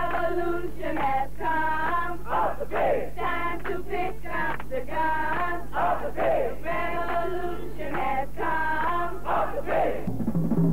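A group of voices singing a song together in chorus, with a steady low hum underneath; the singing breaks off near the end.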